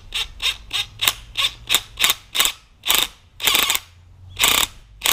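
Hand ratchet wrench worked in quick back-and-forth strokes, about three clicking strokes a second, with two longer runs of ratcheting past the middle, tightening a fastener during coilover shock reassembly.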